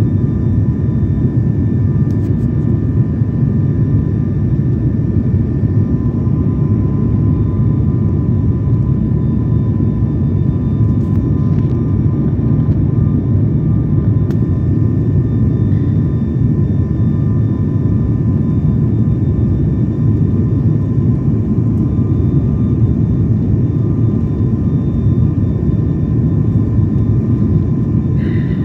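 Cabin noise inside an ATR turboprop airliner on final approach: the engines and propellers run with a steady low hum, with a few constant high-pitched tones over it.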